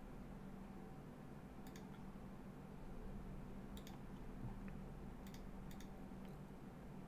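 A few light clicks at a computer, several in quick pairs, over a low steady hum.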